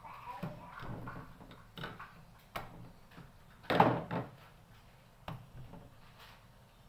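A series of light knocks and bumps, with one louder thud about four seconds in.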